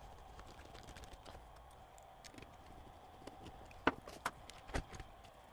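Handling noise: light clicks and taps as a cassette deck's plastic chassis and circuit boards are fitted back together by hand, with three sharper clicks near the end.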